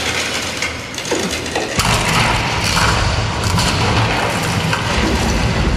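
Loud rumbling sound effect from a show's soundtrack: a steady rushing noise, with a deep low rumble that sets in about two seconds in.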